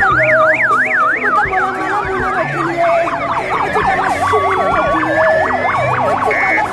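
Electronic sirens on a fast up-and-down yelp, about four sweeps a second. A second, lower-pitched siren joins partway through and overlaps the first.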